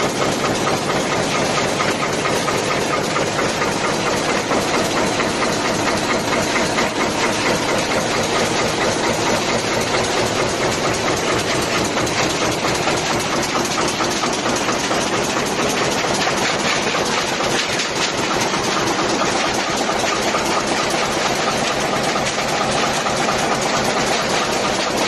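High-speed press line stamping air-conditioner fins from coil stock in a progressive die: a loud, steady run of rapid, even press strokes, many to the second, with machine hiss.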